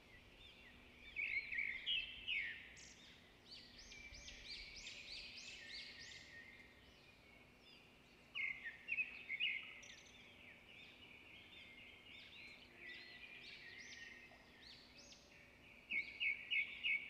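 Birds chirping faintly in the background, several bursts of quick, repeated high notes, with a faint steady hum underneath.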